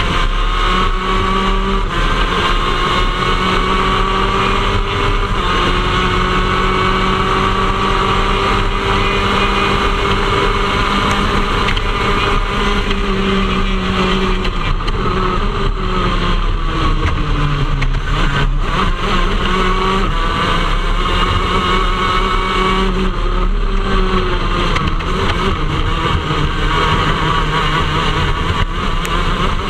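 Onboard sound of a shifter kart's two-stroke engine running hard at high revs. Its pitch sinks about halfway through as the kart slows, then climbs again under acceleration, over a steady rush of wind and road noise.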